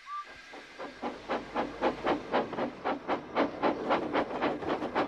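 Steam locomotive chuffing as it pulls away, after a brief whistle toot at the start. The puffs begin slowly and settle into a regular beat of about four a second.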